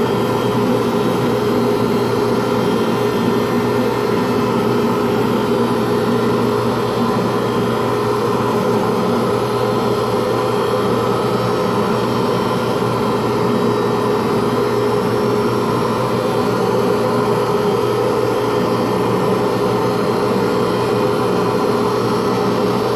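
Pen lathe running at a steady speed, a constant motor hum with a fixed tone, as the spinning pen blank is wet-sanded at 400 grit.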